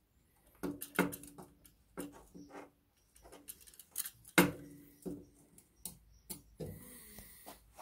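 A string of metal clinks and knocks as an old exhaust pipe on a Honda CB750 is worked loose from its mounting bolt. Several of the knocks carry a short ringing note from the pipe, and the loudest comes a little over four seconds in.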